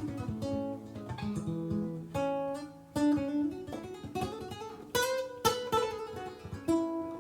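Acoustic guitar strung with hard-tension strings, played as a sound test: plucked single notes that ring on, with strummed chords about three seconds in and again about five seconds in.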